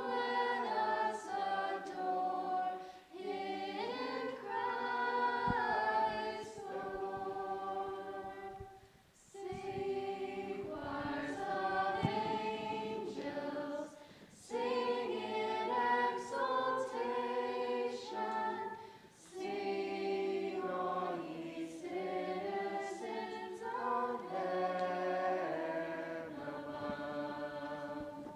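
A student a cappella group sings a Christmas carol in harmony, unaccompanied. The singing comes in phrases, with short breaks between them.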